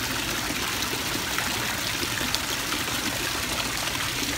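Tiered stone fountain, with thin streams of water spilling from the upper bowl and splashing steadily into the pool below.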